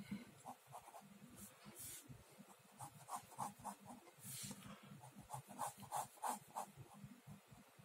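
Pen scratching on paper in runs of quick short strokes, several a second, with one longer stroke about four seconds in.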